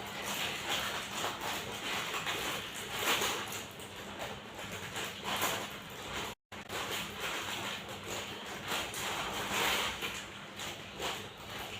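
Plastic-bagged motorcycle body bolts being handled, with irregular crinkling of plastic packaging and light clicks of small metal parts.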